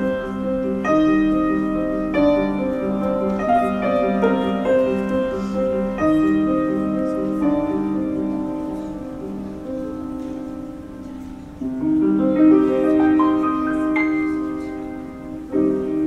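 Grand piano played solo: chords struck one after another and left ringing, growing softer toward the middle and swelling louder again about twelve seconds in.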